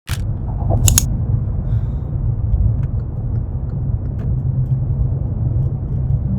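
Steady low rumble of outdoor ambience, with a sharp click about a second in and a few faint ticks.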